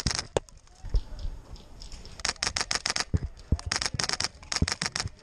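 Airsoft rifle firing: a brief burst right at the start, then three quick bursts of rapid clicks from about two seconds in, with a few dull knocks among them.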